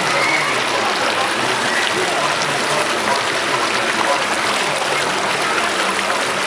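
Water rushing steadily through a body waterslide.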